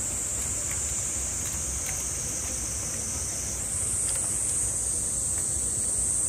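Cicadas buzzing in a steady high-pitched chorus that swells, growing louder and fuller, a little past halfway, over a low background rumble.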